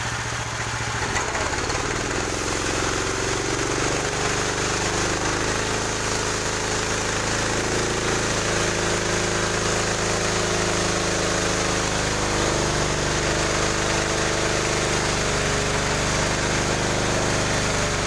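Engine-driven portable circular-saw sawmill running steadily while its saw blade cuts through a log, the engine's drone mixed with the noise of the blade in the wood.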